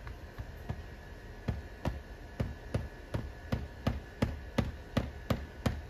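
Hammer striking on an asphalt-shingle roof at the ridge, quick even blows about three a second, faint at first and clearer after about a second and a half.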